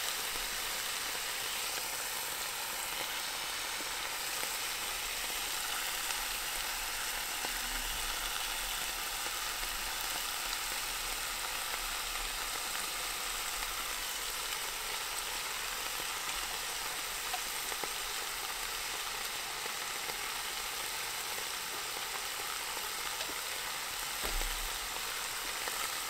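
Pork neck meat frying with a steady, even sizzle.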